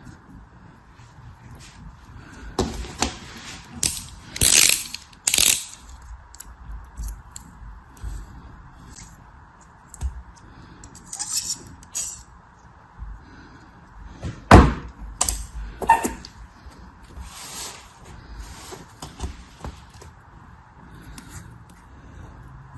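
Products being unpacked by hand: scattered rustles and crinkles of packaging with small clicks and knocks. The loudest is a sharp knock about two-thirds of the way through.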